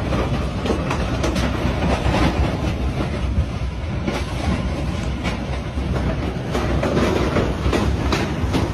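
Hurricane wind blowing hard: a heavy, steady rumbling rush with sharp knocks and rattles scattered through it.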